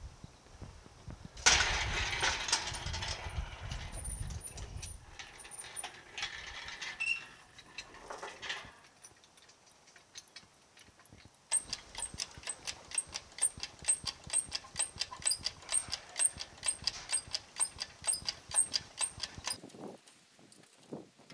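Hand pump of a 1.5-ton Harbor Freight hydraulic engine hoist being worked to lift a truck cab: a steady rhythm of short clicks, each with a high squeak, about two to three strokes a second, starting about midway and stopping shortly before the end. Earlier, a loud scraping rustle with a low rumble for a few seconds.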